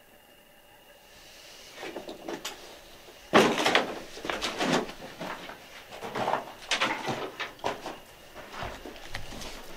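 Footsteps on gritty plaster debris: an irregular run of scuffs and knocks that starts about three seconds in, the first of them the loudest.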